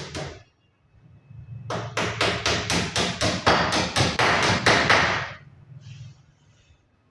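Hammering on a wooden wardrobe frame: a quick, even run of about fifteen blows, roughly four a second, starting about two seconds in and lasting some three and a half seconds.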